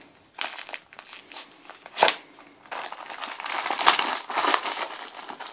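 Christmas wrapping paper crinkling and tearing as a West Highland white terrier worries at a wrapped present with its mouth. The rustles come in irregular spurts, with one sharp, loud crackle about two seconds in and a dense run of crinkling near the end.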